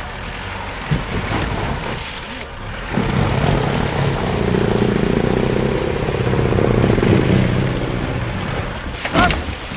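Pickup truck engine revving under load as the vehicle tries to drive itself out. The revs build from about three seconds in and ease off near the end.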